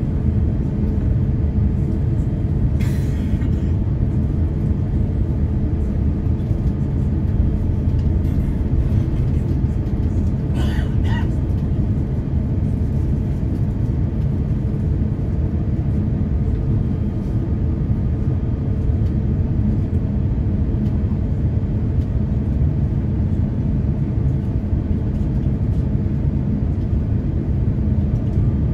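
Steady low cabin rumble of an Airbus A350-1000 taxiing, its Rolls-Royce Trent XWB-97 engines at low taxi thrust, heard from a window seat by the wing. A faint steady hum runs under it, and there are two brief higher sounds, about three and eleven seconds in.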